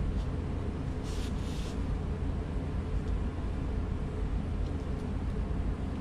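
A steady low rumble of background hum, with one short scratch about a second in: a pencil drawn along a steel rule across a wooden guitar top.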